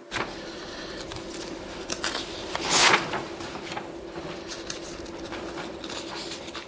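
Sheets of paper being handled and leafed through, with small rustles and clicks and one louder paper rustle about three seconds in, over a steady low room hum.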